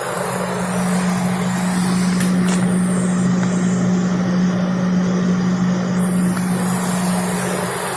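Car's electric radiator cooling fan running over the idling engine: a steady hum with a rushing whoosh, swelling about half a second in and easing off near the end.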